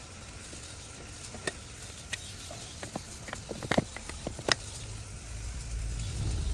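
Scattered light clicks and knocks, with a cluster of sharper knocks a little past halfway, as a low rumble comes up in the last second or two.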